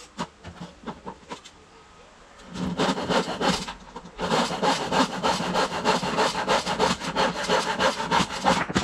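A few light knocks, then a hand saw cutting through timber in repeated strokes, starting about two and a half seconds in, with a short pause near four seconds.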